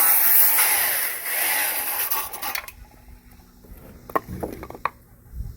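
Power saw cutting through stacked lumber purlins, cutting the top board and scoring the one beneath, running for nearly three seconds before it stops. A few sharp wooden knocks follow.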